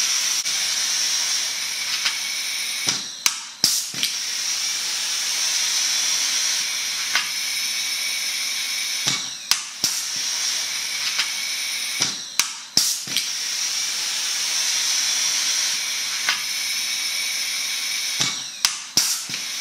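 Air-hydraulic pull-rivet gun (Proset XT2) with its air turned on: the stem-collection vacuum hisses loudly and steadily while rivets are pulled, each one giving a pair of sharp snaps as the mandrel breaks off and is sucked up into the catch canister, four times.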